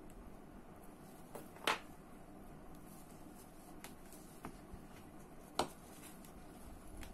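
Small clicks and taps of the parts of a Daiwa Seiko Coronet 5 direct-drive reel being handled and fitted together, with a sharper click about two seconds in and another a little over five seconds in, and fainter ticks between.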